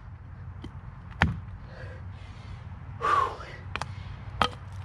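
Sledgehammer pounding on wood: several sharp knocks spaced unevenly, with a short rasping burst about three seconds in.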